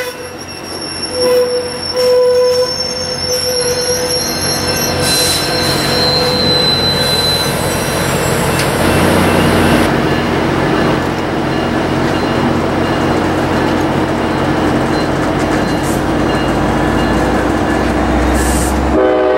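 Amtrak California bilevel passenger cars rolling past on the rails. High steady wheel squeal rings out over the first several seconds, then gives way to a steady rumble of wheels on track.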